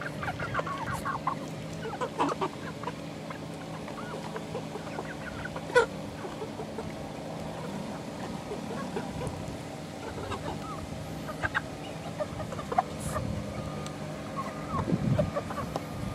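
Young chickens, about 11 weeks old, clucking and giving short calls now and then as they eat coconut, over a steady low hum. One sharp click about six seconds in is the loudest sound.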